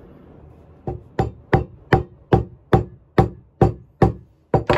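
A hammer driving a small metal wedge into the top of a claw hammer's new wooden handle: about eleven sharp metal-on-metal strikes, roughly two and a half a second, starting about a second in, each with a short ring.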